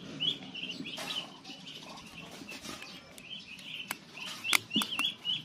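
A few sharp metallic clicks and taps from the feeler gauge and tools at a motorcycle cylinder head's valve adjuster as the intake valve clearance is set. The loudest click comes a little after the middle. A bird chirps over and over throughout.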